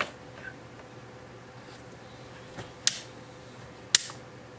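Sharp clicks and taps from handling the opened LED camera light's case and parts: one at the start, then two more about three and four seconds in, over a faint steady hum.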